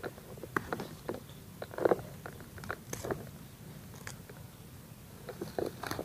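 Weeds being pulled and scraped out of the soil by a gloved hand: irregular crackling and rustling of stems, roots and dry leaves.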